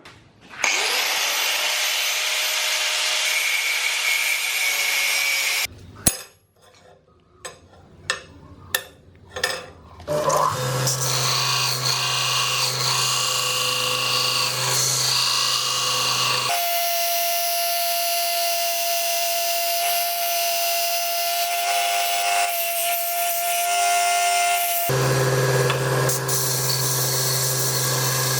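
Metalworking on a steel knife blade: a power tool spins up and runs steadily for about five seconds, then several separate hammer blows ring out. After that, power tools run steadily with a held tone, changing pitch twice along the way.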